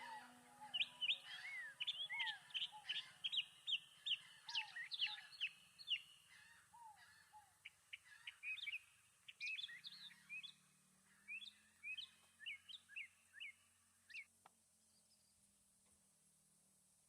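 Small songbirds chirping: many short, quick, sliding calls, dense at first and thinning out, stopping about fourteen seconds in.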